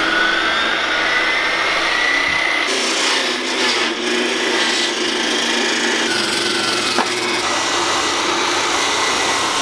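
Large circular saw running under load, ripping lengthwise through wooden sill plates, with a steady motor whine over the sound of the blade cutting wood.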